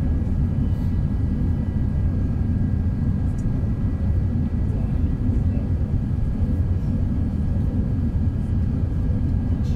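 Steady low roar inside the cabin of an Airbus A380 in descent, from its four Rolls-Royce Trent 900 engines and the airflow, heard from a window seat over the wing, with a faint steady high-pitched whine above it.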